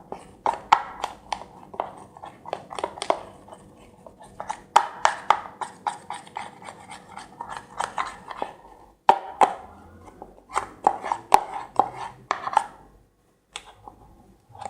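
Utensil stirring a thick slime mixture in a bowl, clicking and scraping against the bowl in quick irregular taps, with a couple of short pauses.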